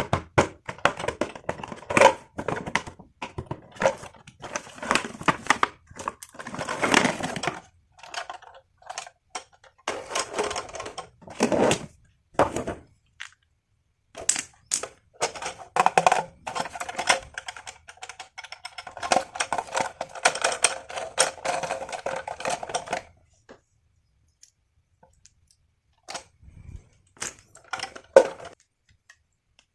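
Toys and their packaging being handled: irregular clicks, taps and rustling, with a quieter stretch about two thirds of the way in.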